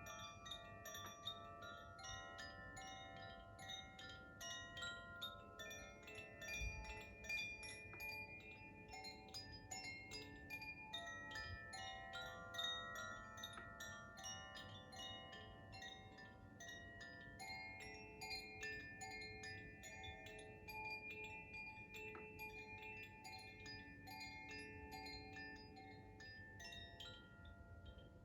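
Koshi chime played by hand, its clapper striking the tuned rods over and over: a continuous wash of overlapping ringing tones. One soft low thump sounds about a quarter of the way in.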